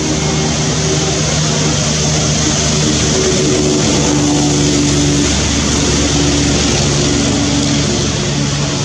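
A steady engine drone: a low hum under a broad hiss, holding level without breaks.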